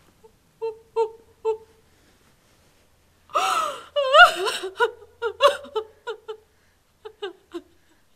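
A woman crying in anguish: a few short choked sobs, then a loud gasping intake of breath about three seconds in that breaks into a wail, followed by a run of quick broken sobs.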